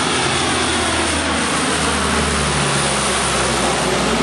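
Four turboprop engines of a Coast Guard HC-130 Hercules running loud as it flies low overhead, the engine drone falling steadily in pitch as the aircraft passes.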